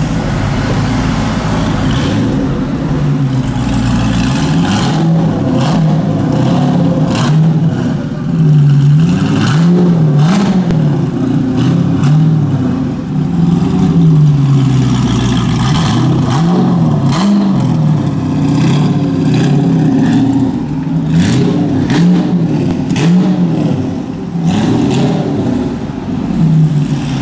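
Mazzanti Evantra's V8 engine running, then from about eight seconds in revved over and over in short blips, its pitch rising and falling roughly once a second.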